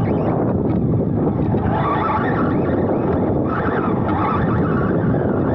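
Onboard audio from a 2wd electric RC buggy at speed: steady wind rush and buffeting on the car-mounted camera's microphone, mixed with the buggy's motor and drivetrain noise, which swells in pitch about two seconds in and again near the four-second mark.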